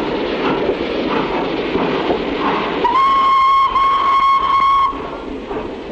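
Sharp Stewart 2-4-0 steam locomotive chuffing, then its steam whistle sounds a single steady note for about two seconds, starting about three seconds in with a brief break partway through.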